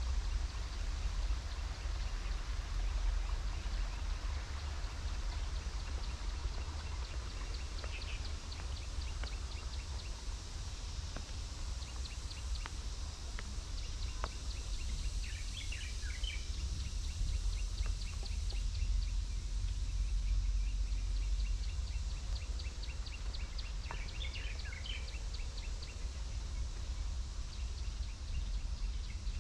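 Garden ambience under a steady low rumble: birds chirp in short clusters about halfway through and again near the end, over a run of high, fast ticking calls at about five a second.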